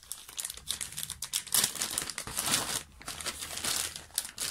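Clear plastic zip-lock bag crinkling and rustling as hands slide a puzzle out of it, in uneven crackles, loudest about a second and a half in.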